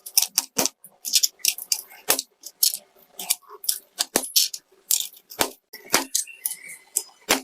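Plastic keys and keycaps of an A4Tech keyboard clicking as they are pressed and seated: an irregular run of sharp clicks, a few a second.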